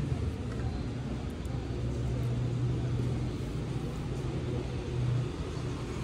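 Steady low mechanical hum over an even background noise, like a running engine or machine.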